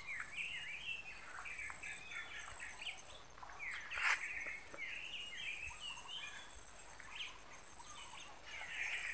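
Several birds chirping in quick, overlapping calls over a steady high-pitched insect drone, with one sharp click about four seconds in.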